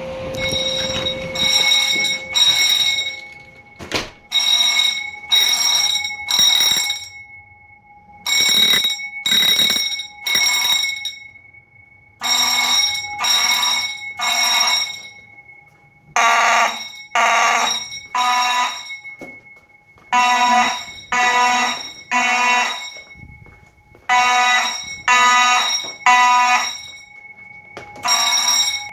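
Home fire alarm system's sounders going off in the temporal-three evacuation pattern: three blasts, a short pause, repeating about every four seconds. A steady high tone runs underneath.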